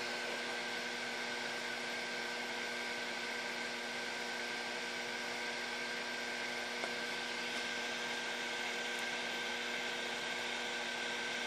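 Steady hiss of a multi-jet cooking-stove burner running on a mix of compressed air, HHO gas and hexane, all its jets lit with small blue flames. A steady hum with a few even tones runs underneath.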